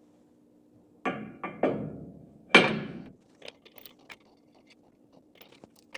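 Heavy metal tool-changer slide plate knocking against the mill's column as it is set in place: three quick thunks about a second in, then a louder one with a short metallic ring, followed by a few light clicks as bolts are fitted.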